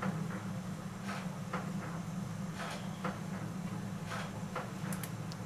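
Faint, scattered rustles and crackles of fingers braiding coily hair, over a steady low hum.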